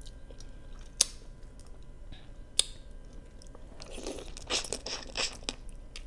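Close-miked mouth sounds of eating crab-leg meat. Two sharp smacks come at about one and two and a half seconds in, then a quick run of wet chewing and lip smacks from about four seconds in.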